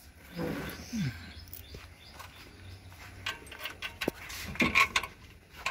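Scattered light metallic clicks and taps of a bolt, washers and spanner as the silencer mounting bolt of a two-stroke three-wheeler is fitted, the sharpest tap near the end, with birds chirping in the background.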